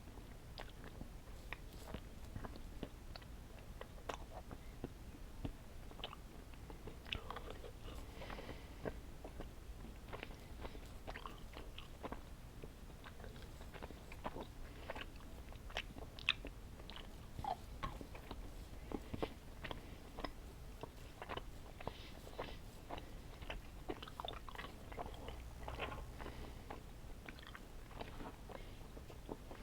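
A person chewing candy close to the microphone, with many short, irregular mouth clicks and smacks.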